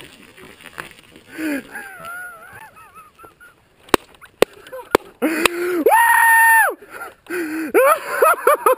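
Wordless yelling from a mountain biker after a crash. A wavering call comes about a second and a half in, and a few sharp clicks follow. Then comes a long, high held yell that jumps up in pitch, and quick broken bursts of voice near the end.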